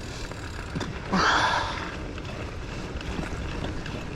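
A person's heavy, frustrated sigh, one loud breath out just over a second in, over a steady low rumble.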